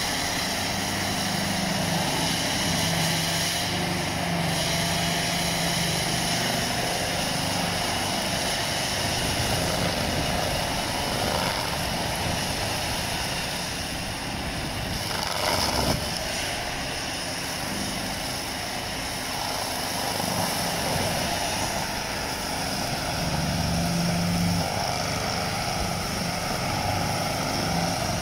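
A 330 hp tractor's diesel engine working under load while its front-mounted MF-705 soil milling mulcher rotor spins, shredding brush and soil: a loud, steady drone and grinding, with one brief louder knock about halfway through.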